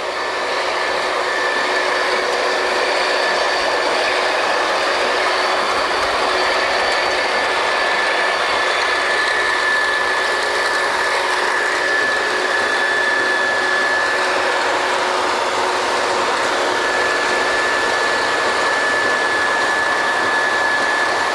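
Drilling rig machinery running: a loud, steady rushing noise with a high whine held through it, growing louder in the first second and then holding even.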